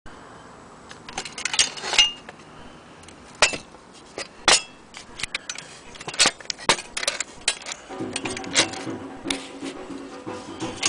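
Metal parts of antique miniature toy sewing machines clinking and knocking as they are handled: a string of sharp clicks, some with a brief metallic ring. About eight seconds in, a low steady hum with several tones joins.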